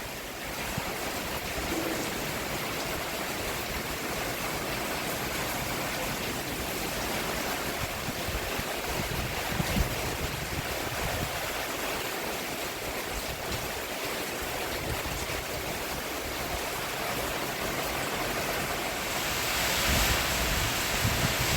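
Steady rain falling on a roof: an even hiss that swells slightly near the end.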